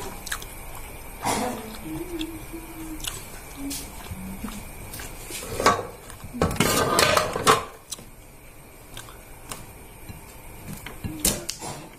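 Eating by hand from a plate of rice and side dishes: scattered clicks and clinks of fingers and food against the plate, with a louder stretch of rough scraping noise lasting about a second, around six and a half seconds in.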